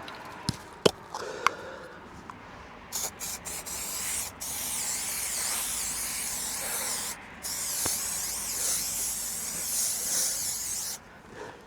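Aerosol can of spray adhesive spraying: a few short bursts about three seconds in, then two long hissing sprays with a brief pause between them. A few sharp clicks and rustles come before the spraying.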